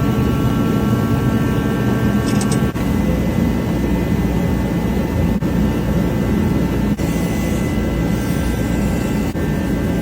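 Moped engine running steadily, with a constant whine over its low running note.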